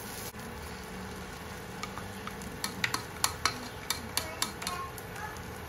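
Egg omelette frying in a nonstick wok while a spatula works it, with a steady low sizzle. About halfway through comes a quick run of sharp clicks of utensils against the pan.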